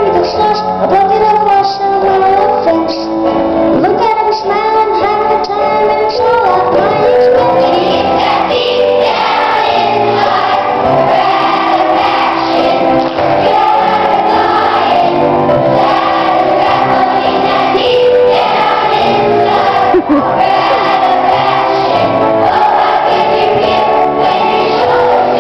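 Children's choir singing a song together with musical accompaniment.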